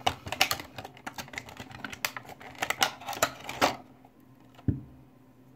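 Hands unpacking a cardboard box: a quick run of clicks, taps and rustles for about three and a half seconds, then quiet with a single low thump about a second later.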